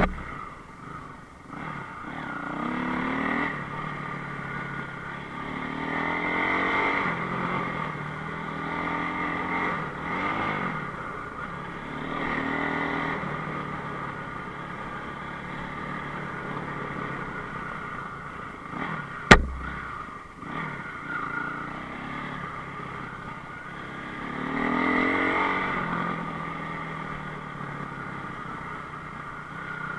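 Enduro motorcycle engine revving up and down in repeated swells as it is ridden, with a single sharp knock about two-thirds of the way through.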